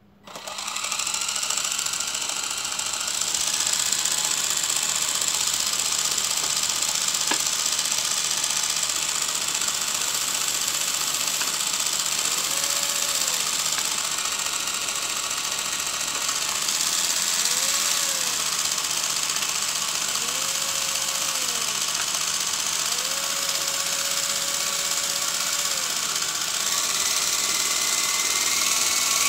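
Toy RC helicopter's electric motor and rotor starting up suddenly and then running steadily: a constant whirring hum with air rush from the spinning blades, a little louder with a rising tone near the end as the throttle goes up.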